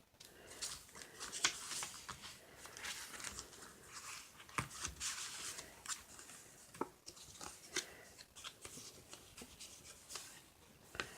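Paper pages of a small handmade junk journal being turned and handled: soft rustling with scattered light clicks and flicks.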